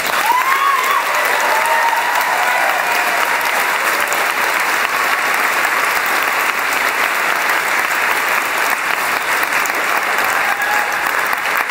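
An audience applauding steadily, with a few voices cheering in the first couple of seconds.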